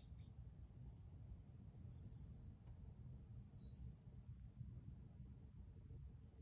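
Faint outdoor ambience: a steady high-pitched insect drone with a few short, downward bird chirps over a low rumble.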